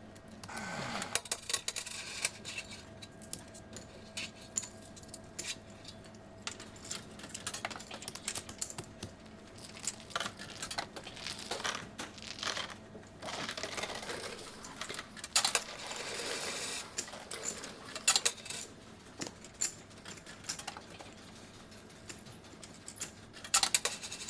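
Casino floor ambience without voices: a steady background with scattered clinks and clicks like coins dropping, and bright chiming patches from the gaming machines.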